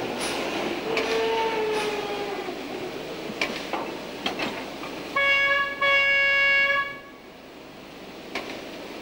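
Steam locomotive whistle blown about five seconds in, one clear blast of about a second and a half with a brief dip partway, over a steady hiss of steam and a few clanks. Earlier a fainter tone slides slowly down in pitch.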